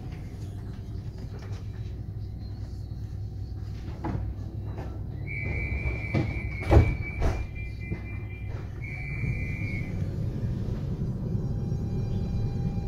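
Inside a DSB Litra SA S-tog commuter train at a station stop: a high electronic door warning tone sounds for about three seconds and again briefly, while the automatic sliding doors shut with two loud thuds. Near the end a steady whine from the Siemens GTO-VVVF traction inverter sets in over the low rumble as the train starts to pull away.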